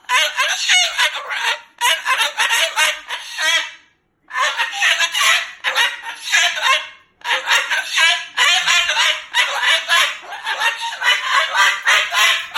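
Moluccan cockatoo vocalizing loudly in long runs of rapid, harsh calls, with short breaks about 2, 4 and 7 seconds in.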